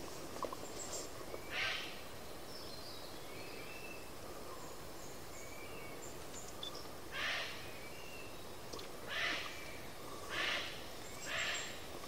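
Harsh, rasping 'shack' calls of a western parotia, five short calls with most in the second half, over a forest background with brief thin high whistles from other birds.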